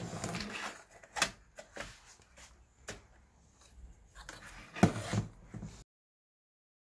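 Clicks, knocks and rustling of hard plastic as the Prius Gen 2 speedometer's circuit board is handled and seated in its plastic housing, with several sharp clicks, the loudest about a second in and near five seconds. The sound cuts off suddenly about a second before the end.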